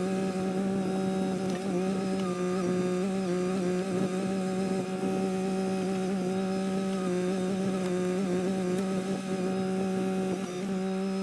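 Kymron XH20D mini-excavator running at steady revs: a constant droning hum that wavers slightly in pitch.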